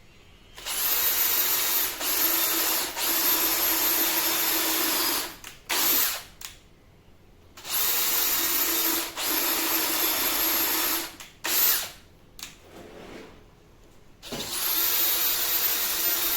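Power drill run in bursts, likely driving screws into wood. There are two long runs of several seconds, each followed by a short trigger blip, and a final run near the end.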